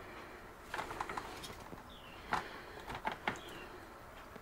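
Meat injector needle worked into a raw chicken's wing in a foil pan: scattered soft clicks and wet squishes, a few at a time.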